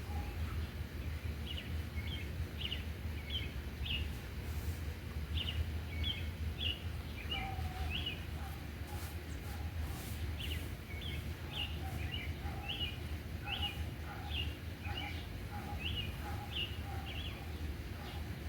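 A bird chirping repeatedly in three runs of short, sharp notes, about one and a half a second, with brief pauses between the runs, over a steady low rumble.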